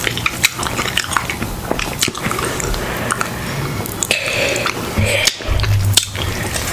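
Close-up eating sounds from a seafood boil: biting and chewing with wet squishes and many small sharp clicks as shrimp are peeled and seafood is dipped in sauce.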